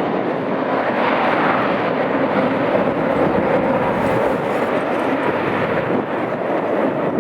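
Airbus A330MRTT tanker's twin jet engines running at high power during its departure: a loud, steady engine noise.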